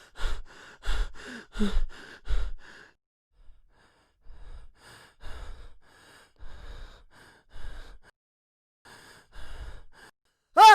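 Heavy breathing of a person out of breath from running: quick panting breaths for the first few seconds, then after a short pause slower, softer breaths. A loud voiced cry begins at the very end.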